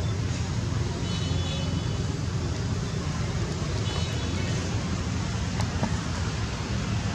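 Steady outdoor background noise with a low rumble. Faint high chirps come twice, about a second in and again about four seconds in.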